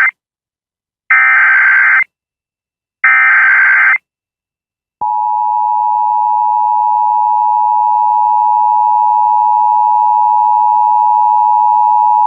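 Emergency Alert System SAME header: short bursts of screechy digital data, about a second each and a second apart, then about 5 s in the steady two-tone EAS attention signal starts and holds. The header and tone announce a Child Abduction Emergency (Amber Alert).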